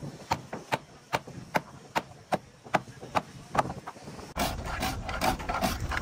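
Hammer blows on the wooden planking of a boat hull, sharp and evenly paced at about two or three strikes a second. About four seconds in, a louder background noise comes in and the strikes go on less regularly.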